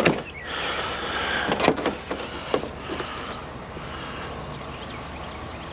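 A sharp knock, then a rushing hiss with a few scattered knocks and clanks as a curbside piece of scrap is handled and turned over.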